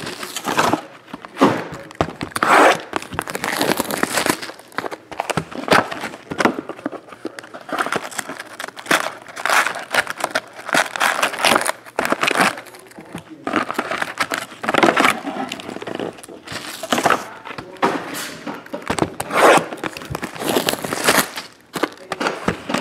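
Foil-wrapped Bowman baseball card packs crinkling and rustling in irregular bursts as they are handled, pulled out of a cardboard hobby box and stacked.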